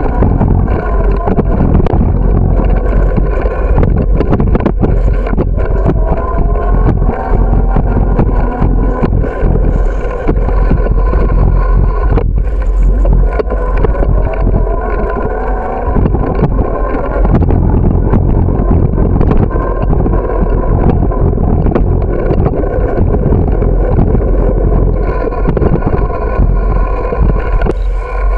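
Riding noise from a moving bicycle: wind rushing over the camera microphone as a loud, steady low rumble, with frequent small knocks and rattles from the bike rolling over the pavement.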